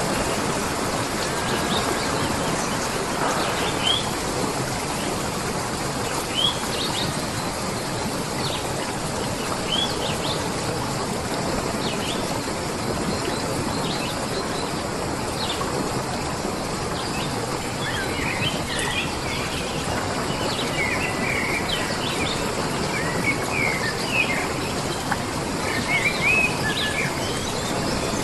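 Birds chirping over a steady wash of outdoor noise. The short chirps come only now and then at first and grow more frequent and clustered in the last third.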